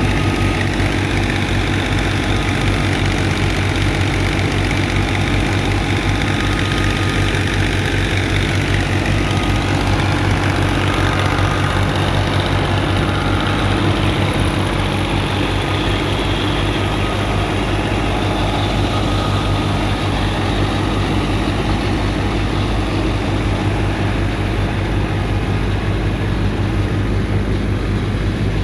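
Wheat threshing machine running steadily, a loud, even engine drone with a deep hum that does not change.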